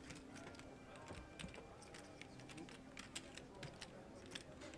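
Poker chips clicking faintly and irregularly as they are pushed across the table and stacked.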